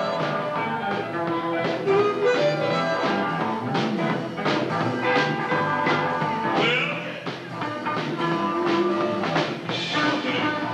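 Live electric blues band playing: electric guitar, bass guitar and keyboard over a steady beat.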